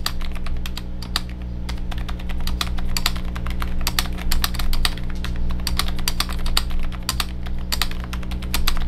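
Fast continuous typing on an Akko M3W aluminium mechanical keyboard fitted with Kailh Islet silent switches, a quick run of soft key clicks. A steady low hum sits underneath.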